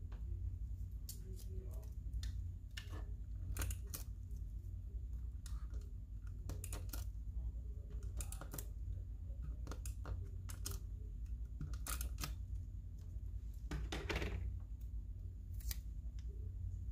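Paper and stationery being handled during journaling: scattered light taps and clicks, often in pairs, with a longer rustle or scrape about 14 s in, over a steady low hum.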